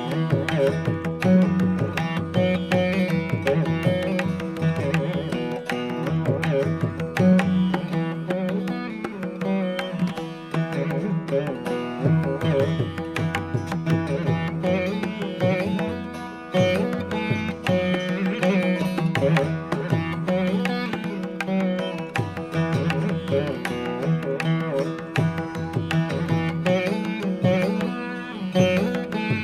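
Instrumental music in an Indian classical style: plucked strings over a steady drone.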